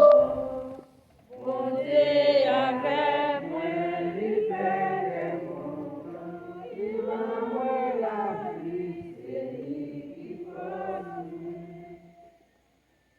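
A group of voices singing unaccompanied, with a short break about a second in; the singing ends about twelve seconds in.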